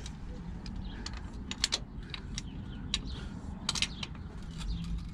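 Irregular light clicks and taps of hand tools and air-line fittings being worked and tightened, over a low steady hum.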